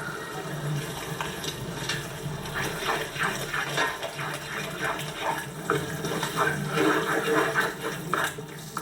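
Water running from a tap into a sink and splashing unevenly, growing busier a few seconds in.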